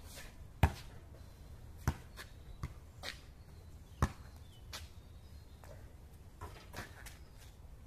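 A basketball hitting the hoop and bouncing on an asphalt court: a string of about eight sharp, irregular thuds, the loudest less than a second in, with the ball bounced and caught again around the middle.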